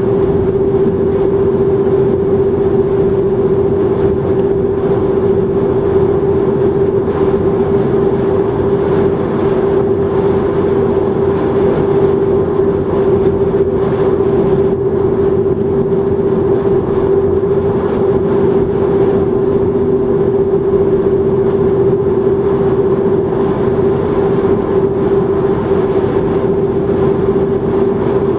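Car driving at highway speed, heard from inside the cabin: steady road and tyre noise with a constant droning hum.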